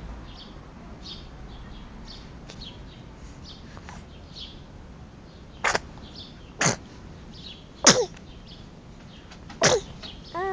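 Four quick little sneezes from a 10½-week-old. The first comes about six seconds in, the next three follow a second or two apart, and the last is near the end.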